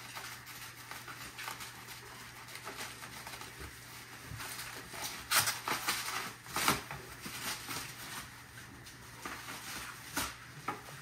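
Crumpled packing paper rustling and crinkling as it is handled and pulled from a package, in irregular crackles, with two louder ones about halfway through.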